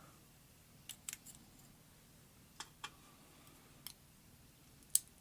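Light, sharp clicks of small metal parts being handled: tweezers and brass pin-tumbler pins clicking against a lock core while its pins are taken out one by one. About six separate clicks, spread out, the last one the loudest.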